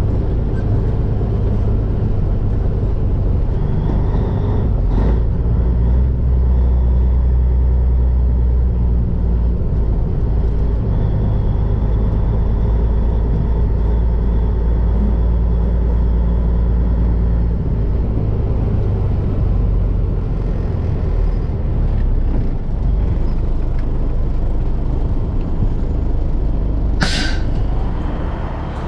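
1984 Peterbilt 362 cabover diesel truck running down the road, a steady low engine rumble that shifts in pitch a few times. A short hiss of air, like an air-brake release, comes near the end.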